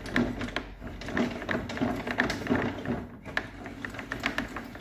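Blade-height adjustment of a Stanley table saw being cranked to lower the stationary blade into the table: a run of small mechanical clicks and rattles, about three or four a second.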